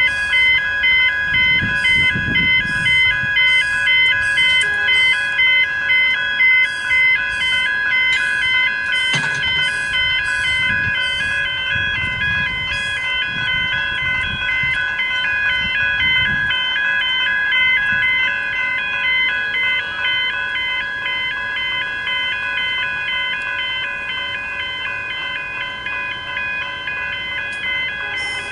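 General Signals electronic level-crossing bells ringing continuously in a fast, even ding pattern, the warning that a train is approaching while the boom gates are down. The ringing fades a little in the second half.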